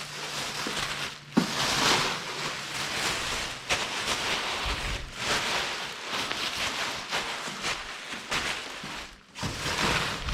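Continuous rustling and scraping of plastic parts being handled and worked, with a sharp click about a second and a half in.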